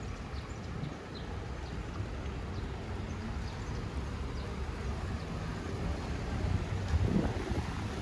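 Outdoor city ambience: a steady low rumble that swells briefly about seven seconds in, with faint short high chirps near the start.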